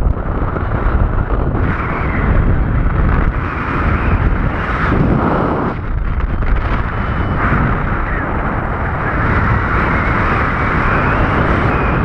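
Loud wind noise on the microphone of a camera on a paraglider descending into a strong headwind: a continuous rush of air that swells and eases with the gusts.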